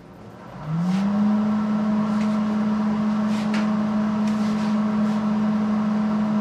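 A welding machine is switched back on: its motor spins up within about half a second into a loud, steady hum, with a few light clicks of metal being handled.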